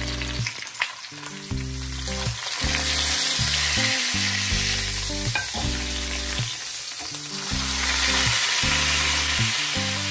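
A large piece of pork frying in hot oil in a frying pan, sizzling steadily. The sizzle swells about two and a half seconds in and again near the end.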